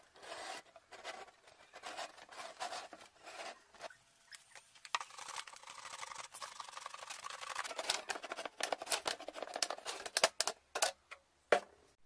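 Marker tip rubbing on a plastic bottle in short strokes, then a utility knife blade cutting around through the plastic: a steady scraping that grows louder and ends in a quick run of sharp clicks.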